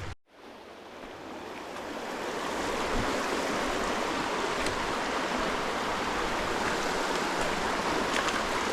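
Creek water rushing steadily. After a brief dropout it swells over the first two or three seconds, then holds an even rush.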